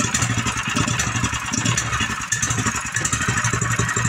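DuroMax XP7HPE 208cc single-cylinder engine running steadily on propane, fed through a dual-fuel LPG carburetor conversion, just after starting.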